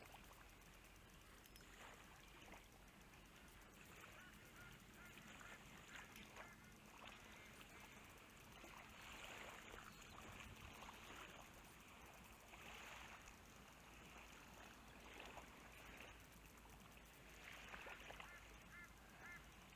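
Near silence: faint outdoor quiet with a few short, faint bird calls, a small cluster of them near the end.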